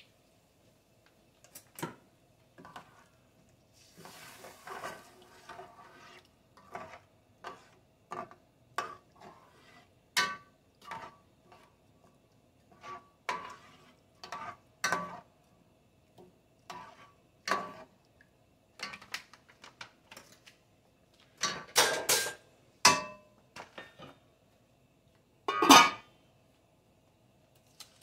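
A spoon stirring rice and chicken in broth in an enamel pot, a run of knocks and scrapes against the pot's sides. Near the end the enamel lid is set on with a loud clatter.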